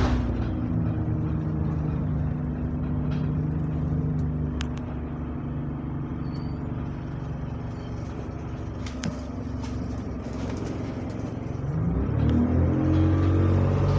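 Bus engine heard from inside the passenger cabin. It winds down as the bus slows, runs steadily at low revs while the bus stands, then revs up near the end as the bus pulls away. A few faint clicks sound over it.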